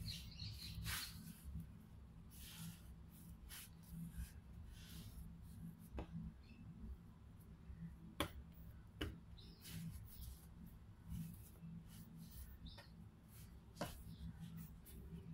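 Hands kneading bread dough on a wooden board: faint soft swishes as the dough is pushed and folded, with a few sharp taps, the loudest about eight seconds in.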